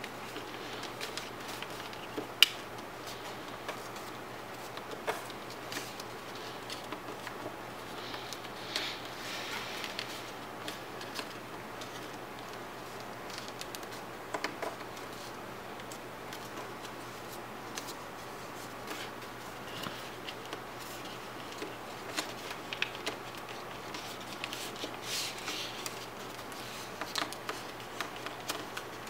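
Sheet of paper being folded and creased by hand on a tabletop: scattered rustles, soft scrapes and light taps, with one sharp tap about two and a half seconds in, over a faint steady hum.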